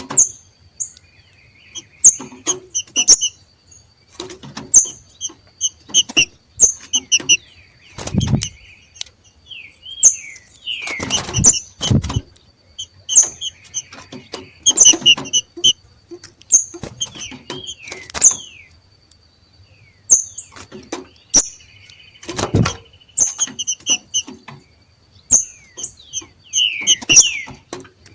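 Green-winged saltators (trinca-ferro) giving the 'macheado', a breeding-season call: short chattering bursts of sharp high notes and quick down-slurred chips, repeated every second or two. A few low thumps fall between the bursts.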